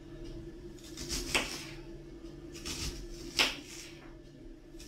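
Kitchen knife slicing an onion into rings on a wooden cutting board: three sharp cuts, each ending in a knock of the blade on the board, the last the loudest.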